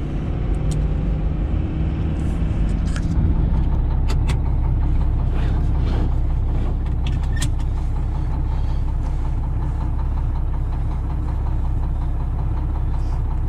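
A dump truck's engine idling, a steady low drone heard inside its cab, with a few light clicks of a seatbelt being buckled. For the first three seconds or so, pickup-truck cab noise on the move instead.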